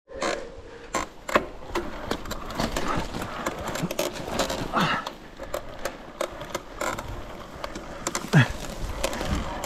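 Electric mountain bike ridden over rough trail: an irregular clatter of rattles and knocks from the chain and frame over the rumble of the tyres.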